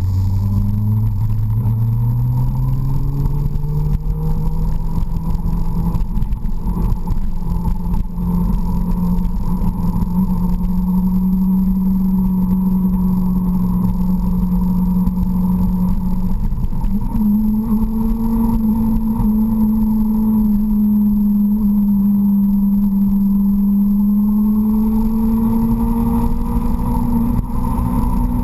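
Suzuki GSX-R sportbike's inline-four engine running at road speed, heard from on board. Its note climbs steadily over the first several seconds, holds, steps up about two-thirds of the way through, then eases and climbs again near the end, over a steady low rumble.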